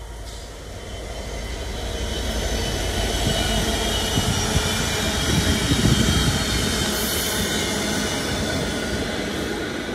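Freight train of bogie tank wagons rolling past at close range: a steady wheel-on-rail rumble with a high-pitched ringing from the wheels over it. It builds over the first few seconds and is loudest a little past the middle.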